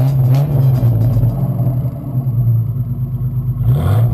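Ford Falcon panel van's 4.0-litre six-cylinder engine running steadily, with a brief burst of hissing noise near the end as the engine note dips and comes back.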